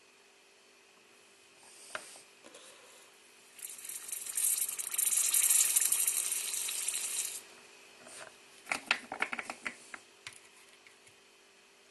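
Hot soldering iron sizzling: a loud hiss lasting about four seconds, followed by a quick run of small clicks and rattles.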